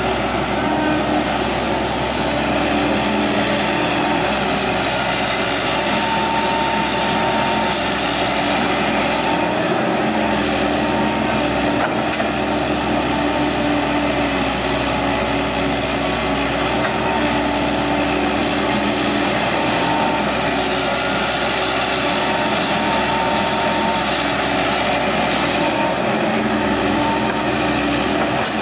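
Excavator's diesel engine running steadily while it digs and loads soil, with a whining tone that comes and goes every few seconds.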